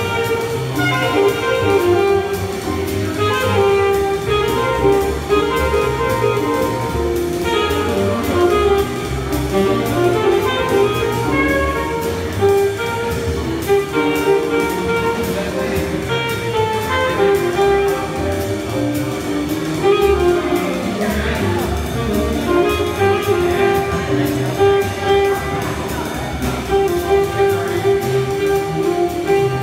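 Live small jazz combo playing: saxophone over piano, upright double bass and drum kit.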